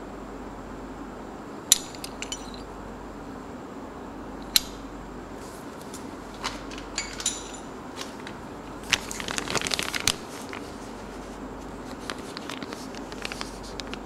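Sharp metallic clicks and clinks as an air-conditioning compressor pulley and its bolt are handled, a few of them ringing briefly. About nine seconds in comes a second of dense crinkling, then a few light ticks.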